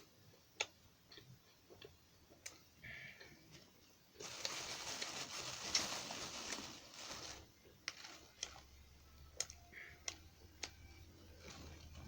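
Close-miked eating sounds: scattered sharp mouth clicks, then, about four seconds in, some three seconds of louder noisy chewing before the clicks return.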